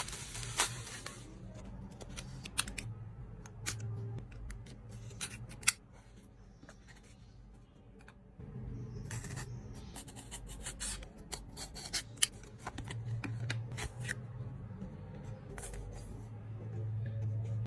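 Photocard packaging being handled and cut open: scattered sharp clicks and snips with rustling, quieter for a couple of seconds just after the middle.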